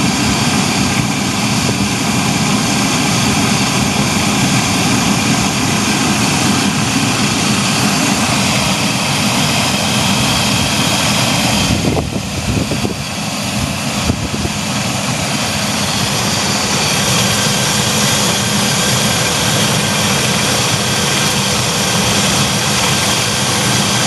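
Chevy Astro van engine idling steadily, running to circulate BlueDevil head gasket sealer through the cooling system. The sound dips briefly about halfway through, with a couple of knocks.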